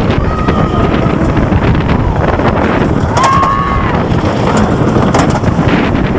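Rushing wind over a head-worn camera microphone on a roller coaster ride (Storm Chaser, an RMC coaster), loud and steady, with two brief screams from riders, one just after the start and one about halfway through.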